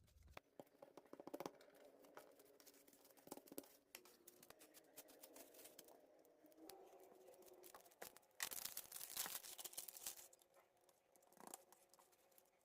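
Kitchen preparation sounds: a run of small clicks and scrapes, like a utensil working in a bowl. A denser scraping or rustling stretch lasts about two seconds just past the middle.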